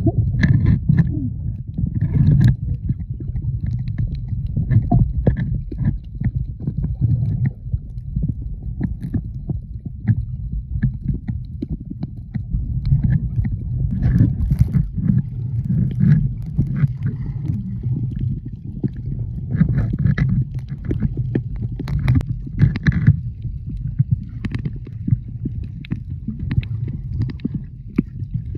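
Water heard through a submerged camera: a muffled low rumble of water moving around the housing as the snorkeler swims, with many irregular clicks and crackles from bubbles.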